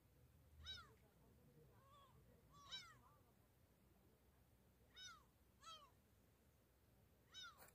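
Gulls calling in the distance: about six short, faint cries, each rising then falling in pitch, spaced irregularly a second or two apart.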